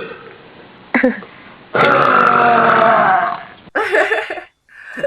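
A person burping deliberately and loudly: a short burp about a second in, then one long drawn-out burp lasting nearly two seconds, then two shorter burps near the end.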